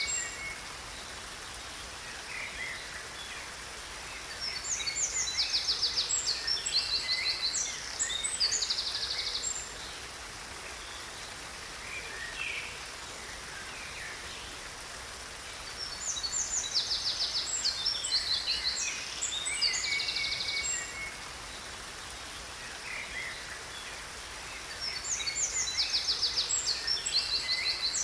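A songbird singing in bouts of high chirps and rapid trills, three times, each bout lasting about five seconds, over a steady rush of falling water.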